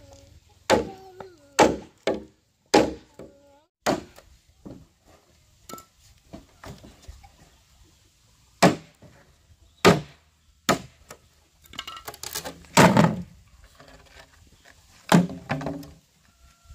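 A blade chopping with sharp single strikes at irregular intervals, about a dozen in all. There is a lull after the first four, and the loudest chops come about thirteen seconds in.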